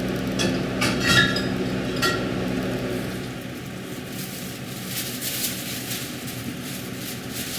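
Glass clinking a few times, sharp little knocks that ring briefly, most of them in the first two seconds, over a steady low hum that fades out partway through.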